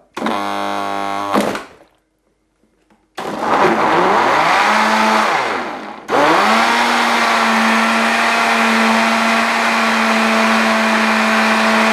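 Semak VitaCrush Mini power blender motor starting at low speed and ramping up to a steady high whine, cutting out briefly before it climbs again. The jug is packed with large raw pumpkin chunks that are getting stuck above the blades rather than blending.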